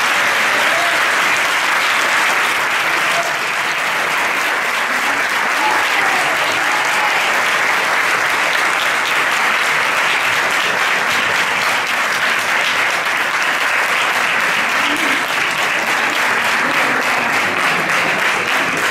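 Crowd applauding steadily, a dense continuous clapping with voices mixed in.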